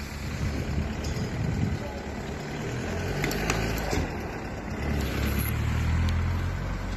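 Low engine rumble of road traffic, swelling about halfway through as a car drives past close by.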